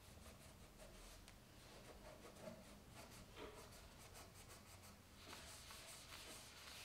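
Faint, quick light ticks and scratchy rubbing in a quiet small room, growing denser for the last second or so.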